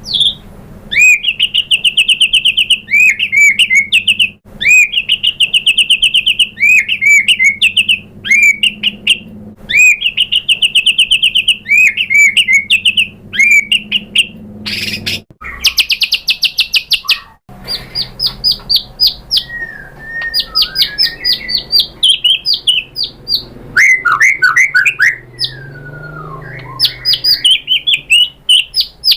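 White-rumped shama (murai batu) singing loudly: fast rattling trill phrases repeated every couple of seconds. About halfway through it changes to varied runs of quick high notes and slurred whistles.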